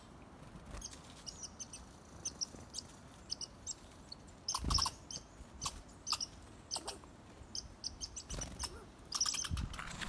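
Small songbirds, black-capped chickadees and tufted titmice, giving many short, high chirps. There are two louder flurries with a low thump, about five seconds in and near the end.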